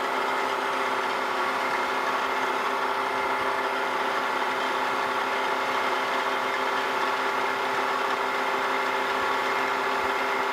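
Wells-Index vertical milling machine running steadily, its spindle turning an edge finder: an even machine hum with several steady tones.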